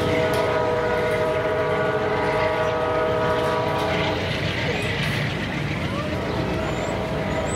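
Amtrak passenger train's air horn holding a steady multi-note chord that stops about four seconds in, leaving the rumble of the train pulling away.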